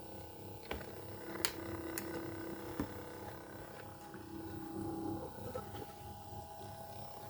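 Small DC motor running with a steady hum, with a few sharp clicks in the first three seconds.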